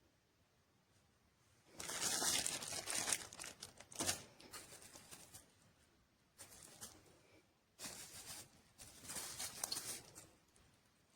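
Crinkling and rustling handling noise in irregular bursts, like packaging being handled, with a sharp knock about four seconds in. There is no steady motor sound.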